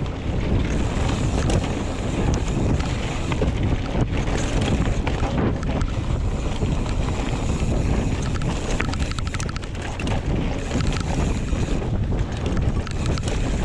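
Wind buffeting a GoPro's microphone as a Giant Trance X 29 full-suspension mountain bike descends a rough trail at speed, over a steady rumble of tyres on dirt and stones. Irregular clatters and knocks come from the bike's chain and frame hitting bumps.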